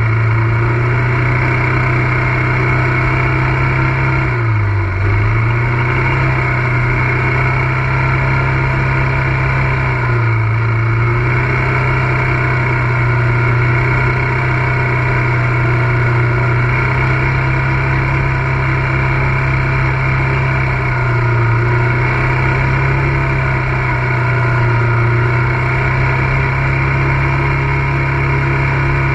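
ATV engine running steadily while riding, its pitch dipping briefly a few times before picking back up.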